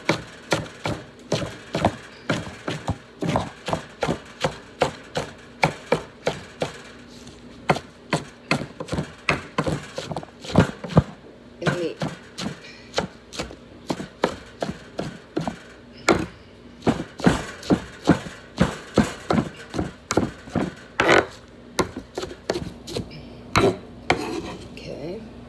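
Kitchen knife chopping fresh spinach and cilantro on a wooden cutting board: a steady run of sharp chops, about two a second, with a few short pauses.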